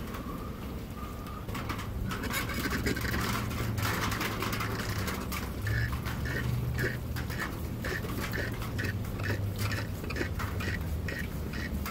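Rag wiping the canister oil-filter housing, then a gloved hand screwing the plastic filter-housing cap back on, with rubbing, scraping and small clicks over a steady low hum.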